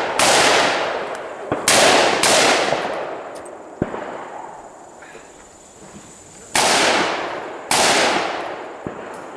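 AR-15 rifle shots: five loud reports in two groups, each trailing off in a long echo, with a few short sharp cracks between them.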